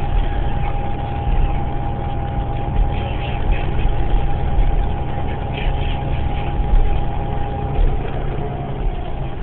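New Flyer Xcelsior XDE40 diesel-electric hybrid transit bus running, heard from inside the passenger cabin: a steady low rumble with a steady tone over it that fades away about eight seconds in.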